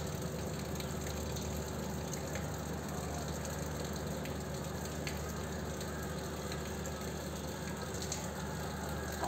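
Steady rain falling during a thunderstorm, an even hiss with a low steady hum beneath it and a few faint ticks.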